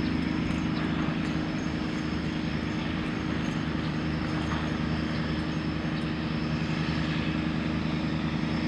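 Cargo boat's engine droning steadily: a low hum of several steady tones over an even hiss.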